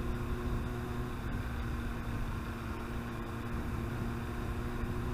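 Yamaha R1 inline-four engine running at a steady, unchanging pitch, with a steady hiss of road or wind noise behind it.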